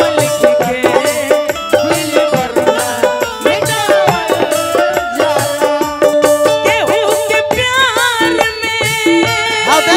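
Bhojpuri folk stage music played by a live band: a fast, steady drum rhythm under a gliding melody line, with no singing.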